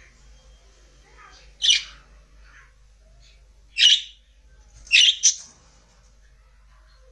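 Pet budgerigars calling: four loud, short, harsh chirps, the last two in quick succession, with softer twittering between them.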